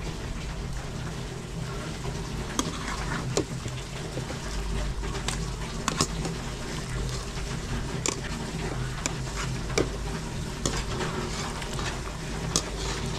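Metal spoon scraping and knocking against an aluminium pot as cooked fish is spooned into a wok of simmering coconut milk, giving scattered sharp clicks over a steady simmering hiss.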